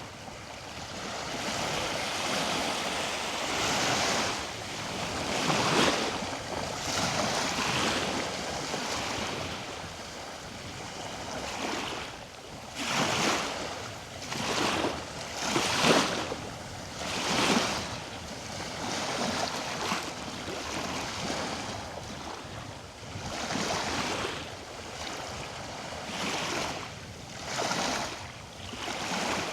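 Ocean surf washing ashore: a steady hiss of water that swells into irregular surges a few seconds apart as each wave breaks and runs up.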